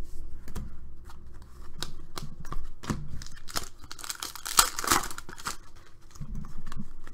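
Plastic wrapper of a basketball trading-card pack being torn open and crinkled, loudest about four to five seconds in. Around it are sharp ticks and flicks of cards being handled.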